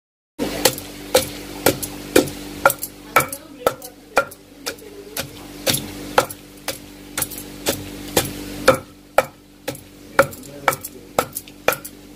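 Wooden pestle pounding a coarse spice, ginger and garlic masala in a stone mortar. It strikes in a steady rhythm of about two blows a second.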